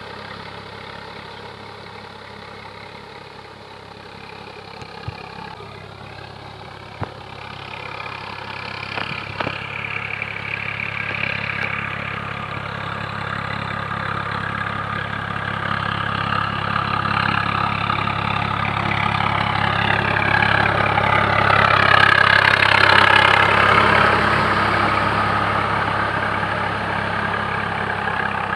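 Swaraj 855 DI tractor's diesel engine running steadily under load while pulling a rotavator through a flooded paddy. It grows louder as it draws near, is loudest about three-quarters of the way through as it passes, then eases off.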